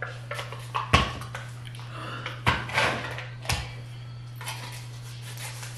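A plastic frosting tub being opened by hand: three sharp knocks and clicks, about a second apart, as the tub, its lid and its seal are handled against the counter.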